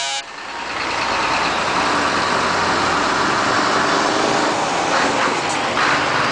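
A heavy diesel lorry's engine runs loudly as the truck drives past close by. The noise swells over the first second and then holds steady.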